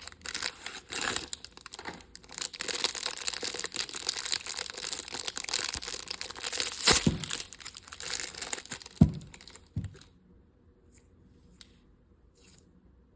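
Packaging crinkling and tearing as a squishy toy is unwrapped, dense and crackly for about ten seconds, then giving way to a few faint soft handling sounds.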